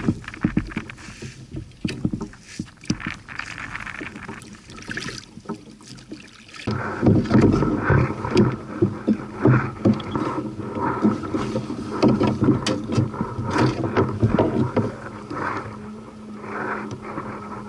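Irregular knocks, taps and scrapes on the plastic hull of a Hobie Outback fishing kayak. After a change about two-thirds of the way through, marsh reeds rub against the kayak and the mounted camera.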